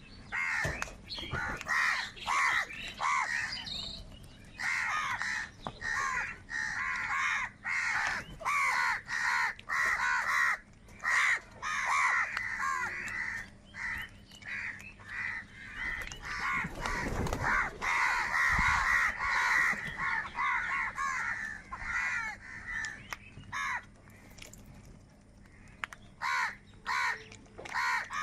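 Several crows cawing, harsh calls coming in quick succession and overlapping one another, with a quieter lull a few seconds before the end.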